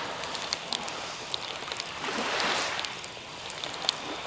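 Small sea waves lapping at the shore: a steady fizzing hiss with scattered faint clicks, one wash swelling up about two seconds in.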